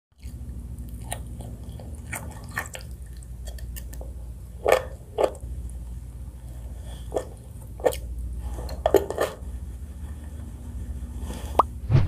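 Close-miked eating sounds: chewing and biting into sausage and noodles, with short, sharp wet smacks at irregular intervals, the loudest about five seconds in and again around eight to nine seconds. A steady low hum runs beneath.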